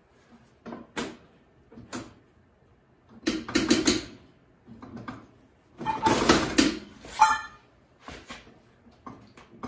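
Short clanks, knocks and rattles of metal parts and hand tools as the seat is worked loose from the go-kart's steel frame. A few single clicks come first, then denser clatters, the loudest just past the middle.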